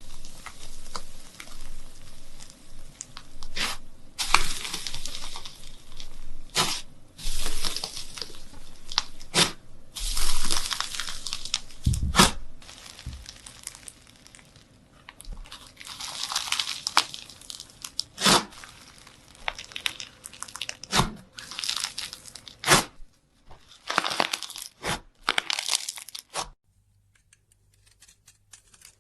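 Repeated tearing and crinkling noises broken by sharp clicks, which stop a couple of seconds before the end.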